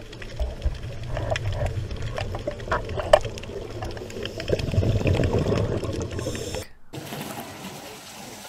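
Underwater ambience from a dive camera: a steady low rumble with watery bubbling and many scattered sharp clicks. It stops abruptly about seven seconds in, then gives way to quieter steady noise.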